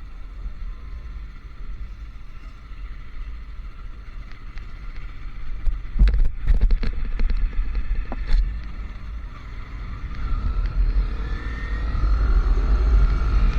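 Motorcycle on the move: wind rumbling on the microphone over the engine, a few sharp knocks about six to eight seconds in, then the engine rising in pitch as it accelerates near the end.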